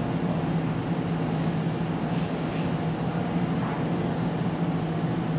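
Tram running along its route: a steady rolling rumble with a constant low hum.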